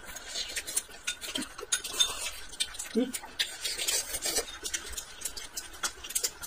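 Wooden chopsticks clicking and scraping against a small glass bowl of dipping sauce and the dishes, in quick irregular taps, with a couple of short hums from the eater.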